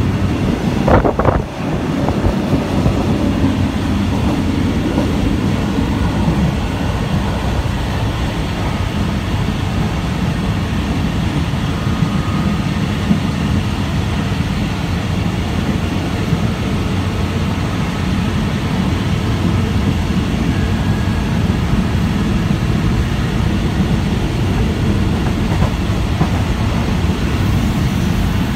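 Steady rumble of a passenger train running, heard inside a carriage with open windows, the noise mostly low. A brief sharp sound about a second in.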